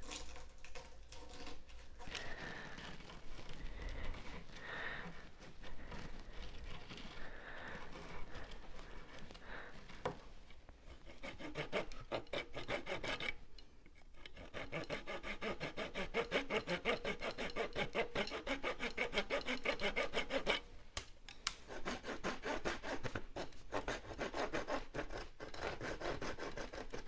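Hand sanding inside the round leg sockets of a wooden chair seat with sandpaper, rubbing off old glue before regluing. Irregular rubbing gives way about ten seconds in to fast, steady back-and-forth strokes, with a short pause before they resume.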